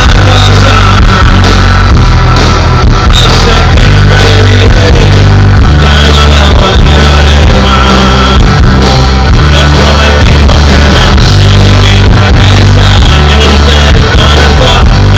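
Rock band playing live with a singer, with guitar and heavy bass and drums. The recording is very loud and stays near full level throughout.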